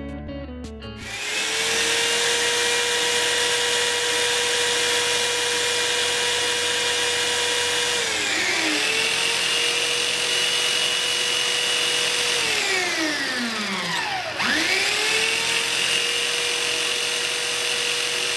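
Electric drill driving a Sparta drill-bit sharpener while a high-speed-steel twist drill bit is held against its grinding stone: a steady motor whine over a grinding hiss. The motor speed dips briefly about eight seconds in. About twelve seconds in it winds down nearly to a stop, then spins back up quickly a couple of seconds later.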